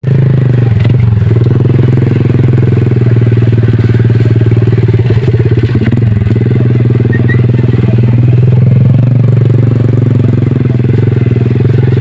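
Motorcycle engine running steadily while riding along a dirt track, with a brief rise and fall in pitch about eight seconds in.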